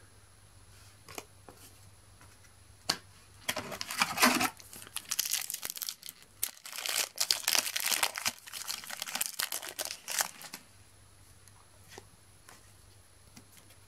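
A foil Match Attax trading-card packet being crinkled and torn open by hand, a dense crackling from about three and a half seconds in until about ten seconds. There are a few soft clicks before it.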